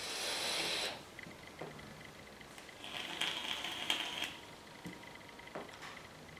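A vape being hit: about a second of airflow hiss with crackle as the coil fires, then a long exhale of vapour starting about three seconds in, with a few soft clicks after. The atomizer is overfilled, and the hit spits juice into the vaper's throat.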